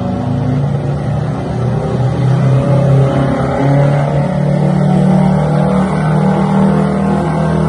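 Detroit Diesel 8V92TA two-stroke V8, blown and turbocharged, in a lifted fire engine, running at full throttle under heavy load while pulling a sled. A loud, steady engine drone that climbs a little in pitch and loudness over the first couple of seconds, then holds.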